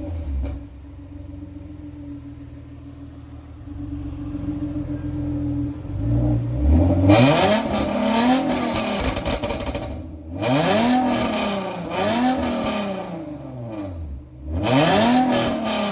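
Genesis Coupe's 3.8 V6, breathing through aftermarket headers, downpipes and catless test pipes into the stock catback exhaust, idling steadily. About six seconds in it is revved once and held up, then blipped three more times, the pitch rising and falling with each rev.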